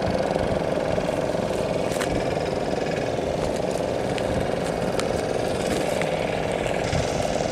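A steady engine-like drone, even in level throughout, with a few faint ticks over it.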